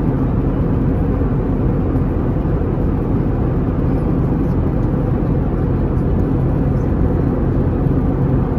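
Steady low rumble of a vehicle in motion, even and unbroken throughout.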